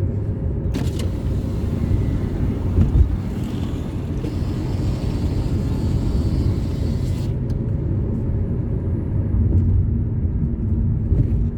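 Car driving on a road, heard from inside the cabin: a steady low engine and tyre rumble. A higher hiss joins it for several seconds near the start.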